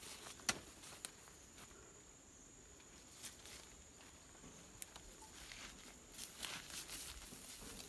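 Footsteps and rustling through grass and brush, with a few sharp snaps, the loudest about half a second in, and a busier patch of rustling near the end.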